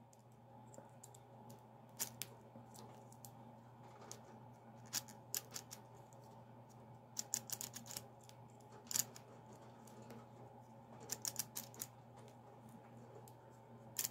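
Faint, irregular small plastic clicks in short clusters as the wind-up mechanism of a 1993 Toy Biz Dr. Doom action figure is turned by hand; the winding is stiff.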